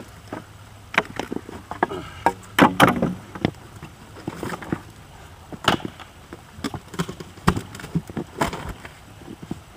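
Irregular wooden knocks and clatter as a sawn cedar round and its chunks are shifted and set down on rocks and driftwood, with a few louder knocks scattered through.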